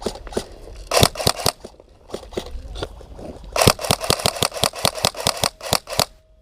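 Airsoft gun firing: a few quick shots about a second in, then a rapid run of about eight shots a second for over two seconds that stops suddenly.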